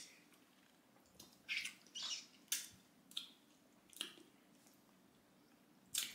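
Faint wet mouth sounds of people tasting sour liquid candy: short lip smacks and sucks, several in quick succession about two seconds in, with quiet gaps between.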